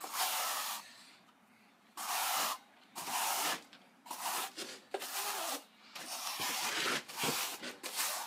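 Steel trowel swiped over stucco base coat on fibreglass mesh, embedding the mesh: a series of about seven rubbing, scraping strokes, roughly one a second, with short gaps between them.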